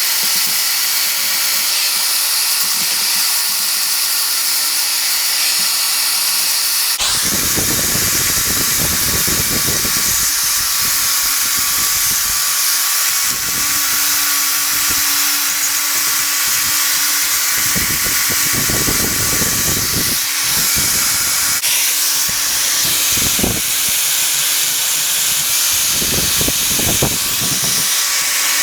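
An electric power tool runs steadily with a loud, hissy high-pitched sound as restoration work starts on an old steel bench vice. Rougher, lower-pitched stretches come about seven seconds in, again about eighteen seconds in, and near the end.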